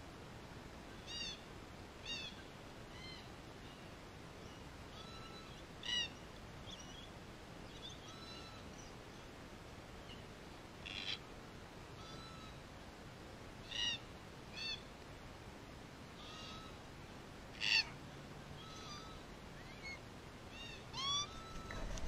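Red-tailed black cockatoos calling: short, arched calls every second or few, with softer whistles in between and the loudest calls near the end. At the very end comes a close flutter of wings.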